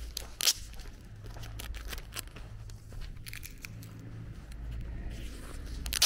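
Footsteps crunching on a gravel lane, with a sharp, loud crunch about half a second in and another at the very end, over a low steady hum.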